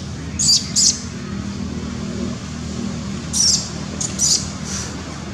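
Short, high-pitched animal chirps in small groups: two about half a second in, then a run of three between about three and a half and five seconds in. They sound over a steady low hum.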